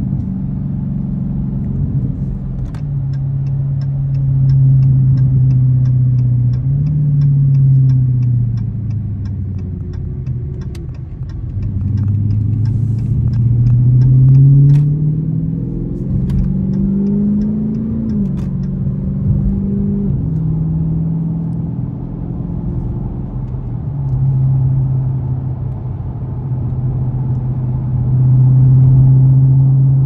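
Dodge Scat Pack's 6.4-litre (392) HEMI V8 heard from inside the cabin, droning at cruise and then pulling harder, its pitch climbing and dropping back several times as it accelerates and shifts. A light, regular ticking runs through the first two-thirds.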